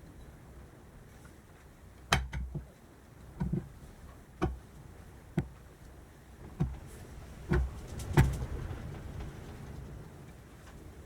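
Scattered knocks and clicks of metal engine parts being handled and fitted, about eight of them over several seconds, the loudest near the end.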